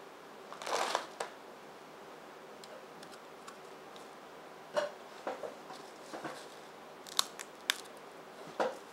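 A thin, crisp black bean chip snapped in half by hand: two sharp cracks about half a second apart near the end, after faint handling ticks.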